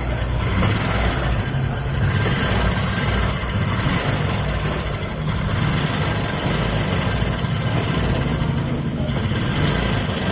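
Honda XRM125's single-cylinder four-stroke engine idling steadily with a strange noise from the lower engine. The noise is traced to the timing chain running on worn-out chain guides and roller guides.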